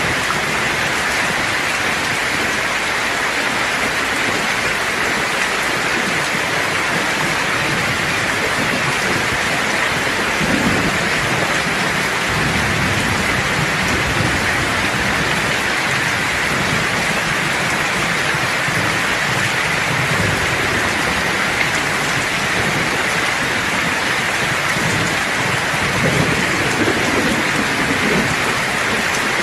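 Steady, heavy rain hissing on surfaces, with low rolling thunder rumbling in twice: once about a third of the way in and again near the end.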